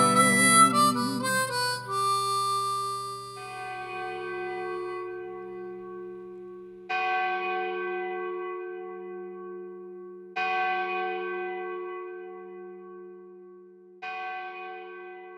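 The song's final notes fade out, then a large bell tolls four times, about three and a half seconds apart, each strike ringing on and slowly dying away over a low pulsing hum.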